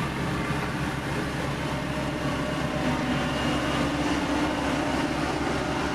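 Heavy diesel road-construction machinery running steadily.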